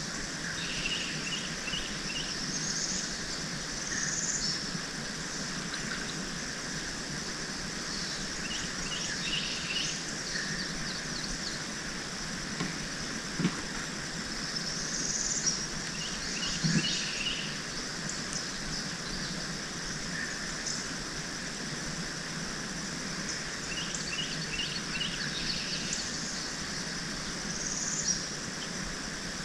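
Wild birds singing, repeated phrases of quick high chirps and short whistled sweeps returning every several seconds over a steady outdoor hiss. Two brief soft knocks sound around the middle.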